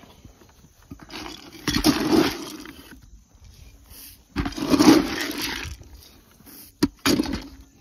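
Grain feed pellets scooped and poured out of a plastic bucket onto the ground, in two pours of about a second each, with a short knock near the end.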